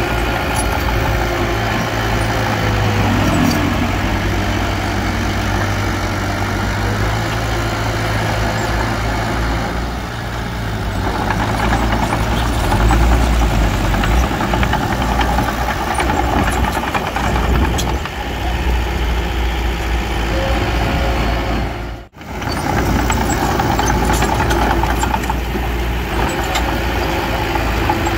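Diesel engine of heavy earthmoving machinery running steadily, growing louder a little after ten seconds in and dropping out for an instant near three-quarters through.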